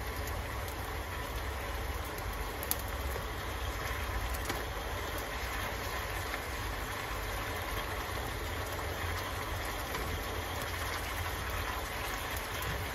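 Bean sprouts and tofu sizzling in a frying pan as they are stirred with a wooden spatula, with a couple of light knocks, over a steady low hum.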